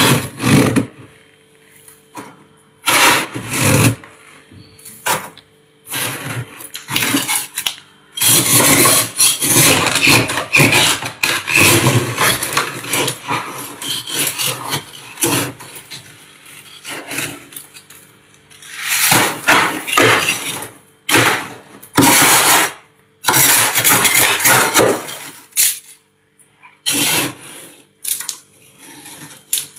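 Thick freezer frost crunching and crackling as fingers dig into it and break it away, in a series of loud scraping bursts, one of them running on for several seconds in the middle. A faint steady hum sits underneath.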